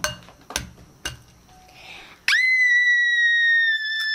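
An egg tapped three times against the rim of a glass bowl, each tap with a faint clink. A little over two seconds in, a loud, high, steady whistle-like tone starts abruptly and holds, sinking slightly in pitch.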